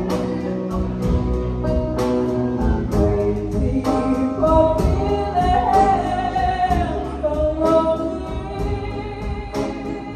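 Live country band playing: a woman singing lead over strummed acoustic guitars and drums keeping a steady beat.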